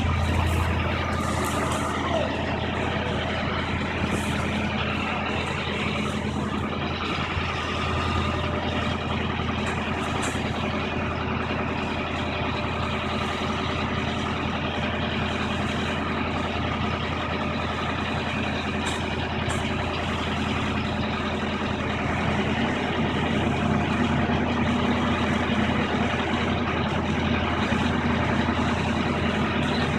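Diesel engine of a high-reach demolition excavator running steadily under load as it works.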